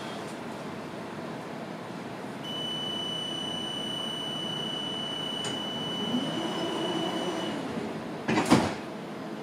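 Inside a tram at a stop: a high, steady door-warning beep sounds for about five seconds over the tram's low running hum, then a sharp, loud thump near the end as the doors shut.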